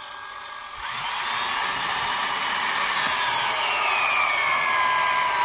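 Power drill running under load as it drives a screw into wood: a steady motor whine that gets louder about a second in and slowly drops in pitch as the screw goes deeper.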